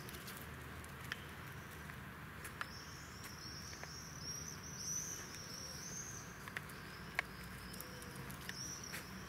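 Small birds chirping in the trees: a run of short, high, repeated calls through the middle and again near the end, over faint outdoor background, with a few sharp single clicks.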